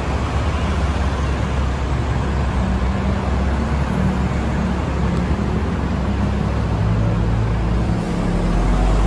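Steady city street traffic noise: a continuous low rumble of passing vehicles under a broad hiss.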